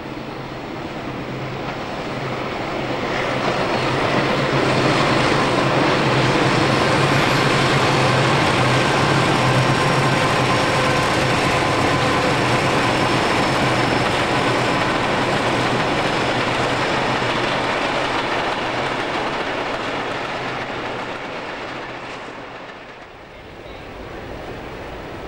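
Two NSW 44 class Alco diesel-electric locomotives hauling a passenger train past, their engines giving a steady low drone over the rumble of the train. It swells over the first few seconds, holds loud, then fades away as the train passes, and near the end it cuts to a quieter, steady background.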